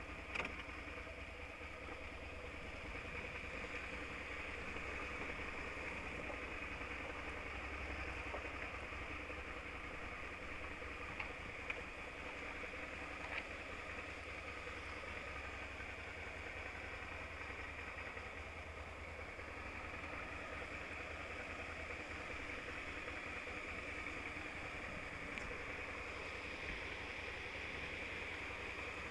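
Suzuki V-Strom's V-twin engine running steadily with no revving, and a few short sharp clicks near the start and around the middle.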